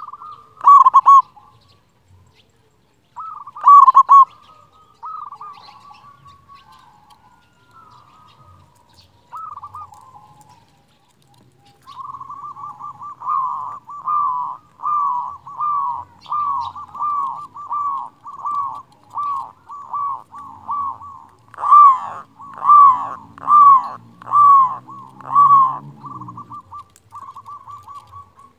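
Zebra dove (perkutut) cooing. A few loud rolling notes come first, then a long even run of rolling coos, a little more than one a second, louder toward the end.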